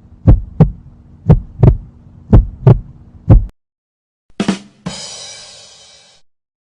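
Heartbeat sound effect: paired low thumps about once a second, which stop about three and a half seconds in. After a short silence comes a thump, then a hissing crash that fades over about a second.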